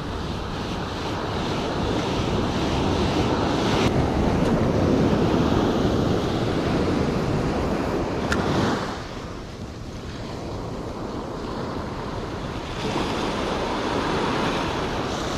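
Ocean surf breaking and washing up the beach: the noise builds for several seconds, falls away sharply about nine seconds in, then swells again near the end, with wind rumbling on the microphone.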